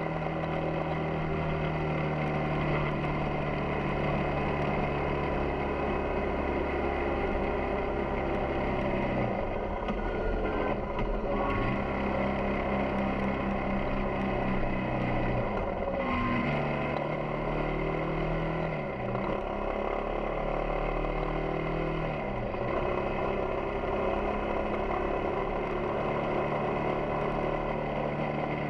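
Yamaha XTZ 250 Ténéré's single-cylinder four-stroke engine running under way, heard from the bike. Its pitch drops sharply and climbs back several times in the middle, as the revs fall and pick up again.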